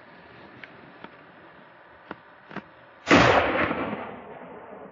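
A single loud hunting-rifle shot about three seconds in, its report echoing and dying away over a second or so. A few faint clicks come before it.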